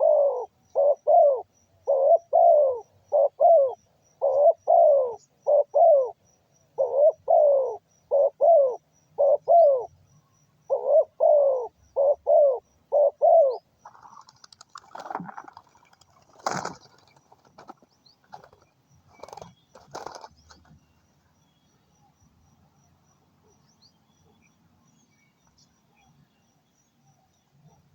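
Dove cooing: short, quick coos in runs of two to four for roughly the first half. These are followed by a few scattered knocks and rustles, then quiet.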